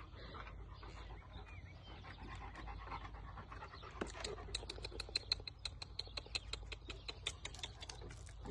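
Large long-haired dog panting in quick, even breaths, about five a second, starting about four and a half seconds in.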